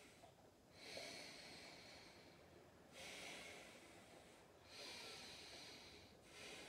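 A person breathing slowly and deliberately during yoga practice: three faint, drawn-out breaths, each about a second and a half long, with short pauses between them.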